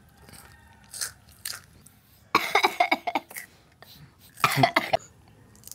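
A person coughing in two short bouts, a couple of seconds apart.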